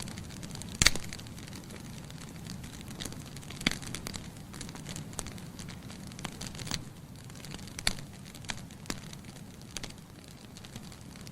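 Bonfire crackling, with irregular sharp pops over a low steady rush; the loudest pop comes about a second in.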